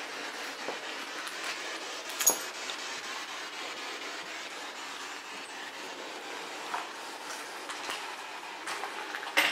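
Footsteps and scattered light knocks on a debris-strewn cellar floor over a steady hiss, with a sharp click about two seconds in and another near the end.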